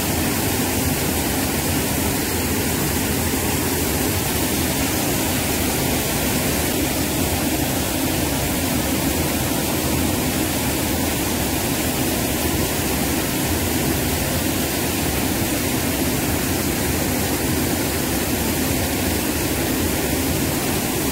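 Steady rushing of a fast, flood-swollen river churning over rapids.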